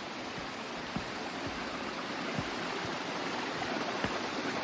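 Steady rushing of falling and running water at South River Falls, an even hiss-like roar with no changes, and only a few faint taps on top.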